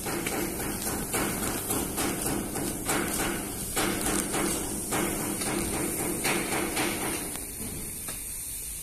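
Hammer blows on metal in a truck-body workshop, irregular and several a second, easing off about seven seconds in, over a steady low hum.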